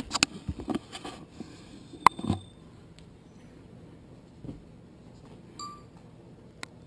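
Quiet room with a few light clicks and knocks in the first couple of seconds, the sharpest about two seconds in. After that there is only a faint steady hum, with a brief high squeak a little before the end and one more click at the very end.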